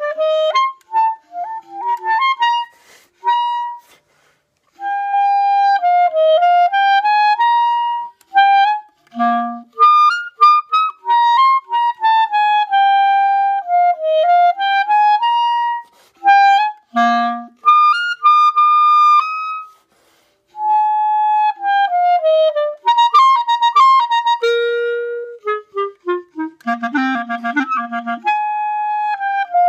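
E-flat clarinet playing an unaccompanied etude: phrases of held notes and quick runs, with short breaks for breath about four seconds in and again near twenty seconds.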